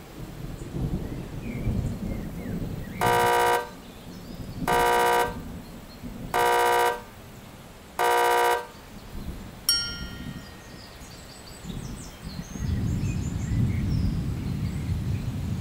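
Four buzzer-like 'wrong answer' sound effects, each a steady half-second tone, about a second and a half apart, over a low rumbling background. One bright ding about ten seconds in, and the rumble swells near the end.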